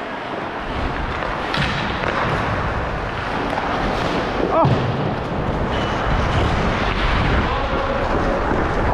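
Ice hockey skating on a rink: skate blades scraping the ice under a heavy low rumble of wind buffeting a body-worn camera's microphone as the wearer skates.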